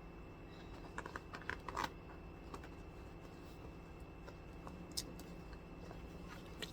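Light clicks and taps of a leather bag being handled: a quick cluster about a second in, then single clicks near five seconds and at the end.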